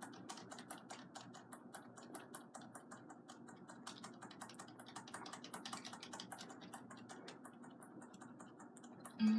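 Computer keyboard keys being tapped rapidly and repeatedly, several irregular clicks a second. A short, louder tone cuts in right at the end.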